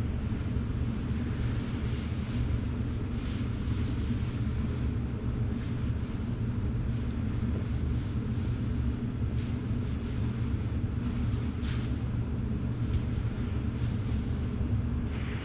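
Hot-water carpet extraction machine running steadily with a low, even droning hum, its suction pulling through a clear plastic hand tool worked over the carpet.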